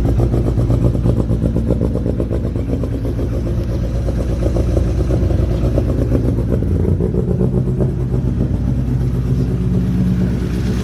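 Toyota Starlet's rebuilt 4E-FTE turbocharged four-cylinder engine running, with no bearing knock but a little piston slap.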